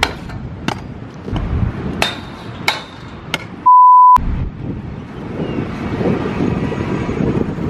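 Stunt scooter knocking and clattering on a steel park rail, several sharp hits. Then a loud steady test-tone beep of about half a second, the tone that goes with TV colour bars. Then an even rush of outdoor noise.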